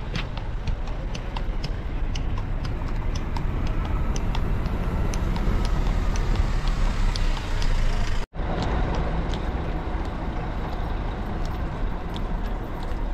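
Horse-drawn carriage on the move: the horse's hooves clop at an uneven two to three strikes a second over a steady low rumble, and the sound cuts out for an instant about eight seconds in.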